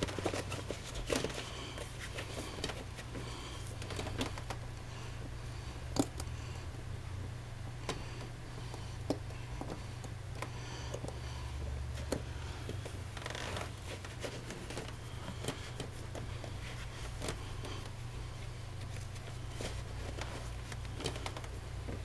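Handling noises from a rubber buckle overshoe being pulled on over a work boot: scattered sharp clicks and short rubbing and rustling sounds as the rubber is worked and its metal buckle clasps are handled, over a steady low hum.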